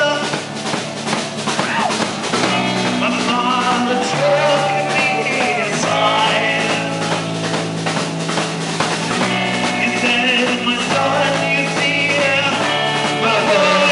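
Rock band playing live, with drums, guitar and a singer over a steady bass line.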